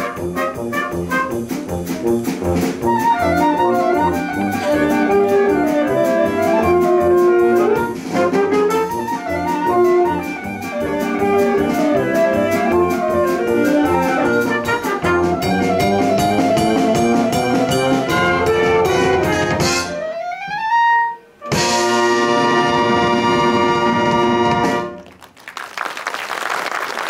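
School wind band with clarinets, saxophones and brass playing a jazzy piece with a steady beat. About twenty seconds in, one instrument slides upward in pitch, the band holds a final chord that cuts off, and applause starts in the last two seconds.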